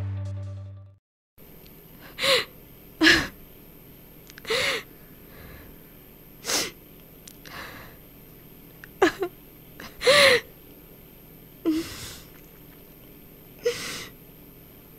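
Background music fades out in the first second. Then a woman cries in short gasping sobs, one every second or two, each with a catch in the voice.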